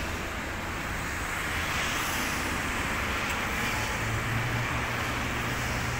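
Street traffic: steady road noise of passing vehicles, swelling once about two seconds in. A low engine hum joins about four seconds in.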